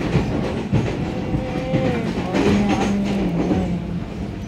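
Passenger train running at speed, heard from inside the carriage: a steady rumble and rush of wheels on the rails.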